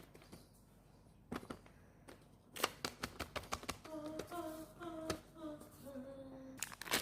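Scattered clicks and taps of small objects being handled, with a faint high voice singing a few held notes from about four seconds in.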